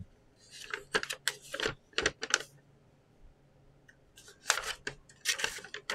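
Paper crinkling and rustling as a folded paper invoice is handled and unfolded, in two bursts of crackle, the second starting about four and a half seconds in.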